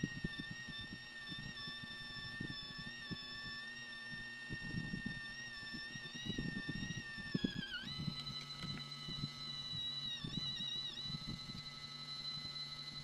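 Homemade 24-volt DC gear-motor mini drill press running with a steady high whine while its twist bit cuts into an aluminium bar, with rough grinding noise from the cut underneath. The whine sags in pitch under load, dips sharply about eight seconds in, then rises again and wavers briefly near eleven seconds.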